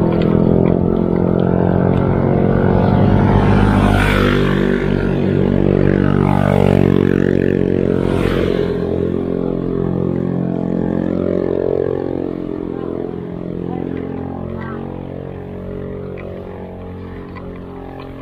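Motor vehicle engine running close by, its pitch shifting a couple of times in the first half, then fading steadily away over the second half.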